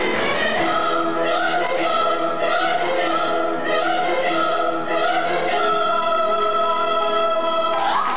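A choir singing with musical accompaniment, a moving melody that settles into a long held note about three quarters of the way through and breaks off just before the end.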